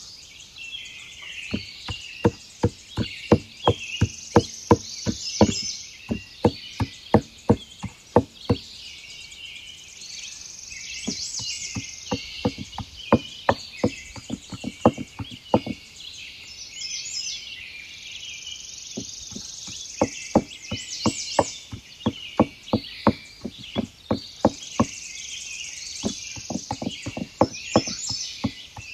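Repeated chopping strokes on a wooden board, sharp knocks about two to three a second in runs broken by short pauses, with a longer pause past the middle. Steady birdsong and insect chirping carry on underneath.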